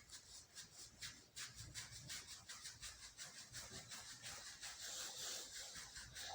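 Faint rhythmic rubbing by hand, in short quick strokes at about four a second.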